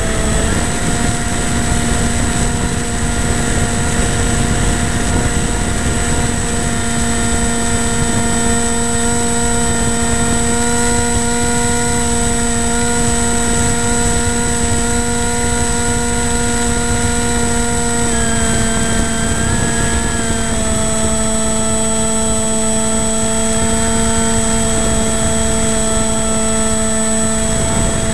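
Model aircraft motor and propeller running at a steady pitch in flight, heard from the onboard camera with wind rushing over the microphone. The pitch shifts slightly a couple of times.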